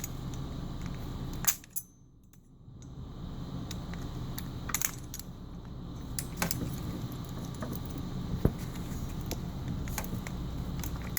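Scattered metallic clicks and clinks of small parts being handled as the cooling fan is taken off a slush machine's gear motor.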